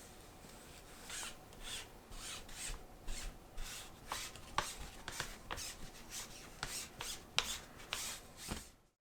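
Hand scrubbing during cleaning: a run of short rubbing strokes, about two a second, starting about a second in and stopping just before the end.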